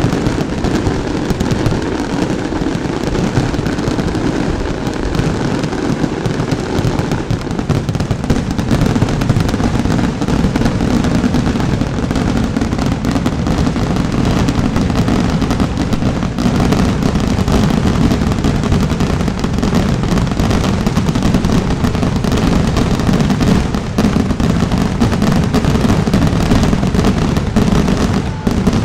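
Fireworks display going off in a dense, continuous barrage of bangs and crackling, with no pause between the bursts.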